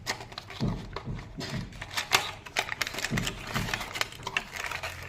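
Charger packaging being handled: irregular sharp plastic clicks and taps, as from the blister pack and box.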